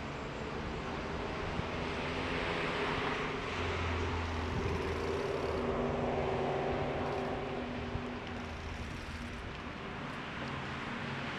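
Riding noise from a Giant Reign mountain bike rolling slowly over paving, heard on an action camera's microphone: a steady rush of wind and tyre noise with a faint low hum under it.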